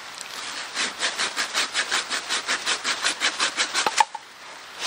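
Curved pruning saw cutting through a thin dead branch with quick, even strokes, about six a second, ending in a sharp crack near the end as the cut piece breaks off.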